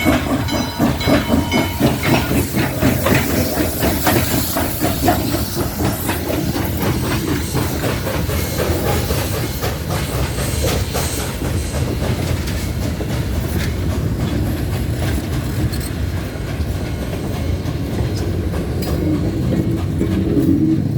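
Western Maryland 1309, a 2-6-6-2 articulated Mallet steam locomotive, running with its train: pulsing exhaust and steam hiss, strongest in the first several seconds, then a steadier rumble of the train rolling on the rails.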